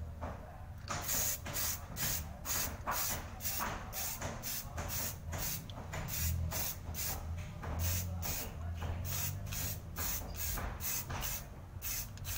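Aerosol spray paint can sprayed in short, quick bursts, about three hisses a second, starting about a second in.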